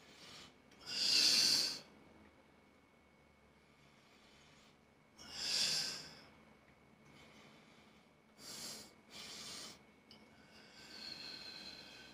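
A man's forceful breaths with the effort of barbell curls: two loud hissing exhalations about four seconds apart, then softer, shorter breaths.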